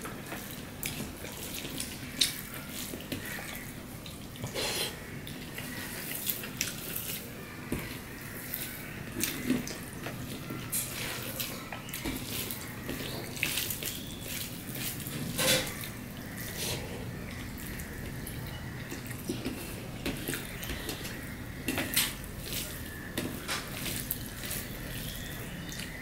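Bare fingers kneading and squeezing boiled rice mixed with vegetable curry on a stainless steel plate: wet squishing and squelching, broken by many short sharp clicks.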